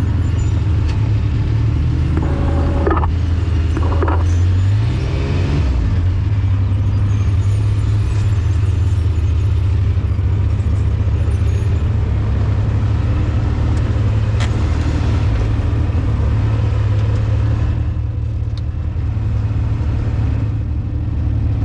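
Side-by-side UTV engine droning steadily while under way, its pitch stepping up about five seconds in as it picks up speed.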